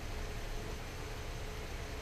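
Steady outdoor background noise: an even hiss over a low rumble, with a faint steady hum.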